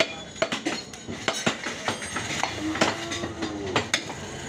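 Knives chopping on wooden butcher's blocks: sharp, irregular knocks, several a second.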